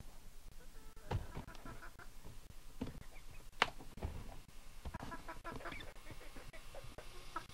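Chickens clucking in short bursts, with a few sharp knocks, the loudest about halfway through.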